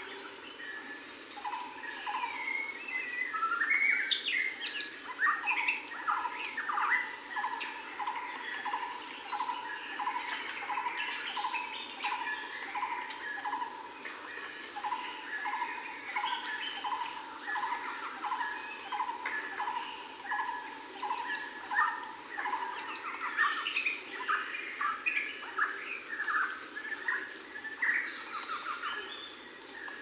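A chorus of several songbirds chirping and trilling, with one short note repeating steadily about three times every two seconds and a thin high whistle about every two seconds.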